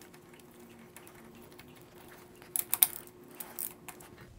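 Gearbox drain plug being threaded back in and tightened under a shifter kart: a quick cluster of sharp metallic clicks about two and a half seconds in, then a few softer clicks shortly after.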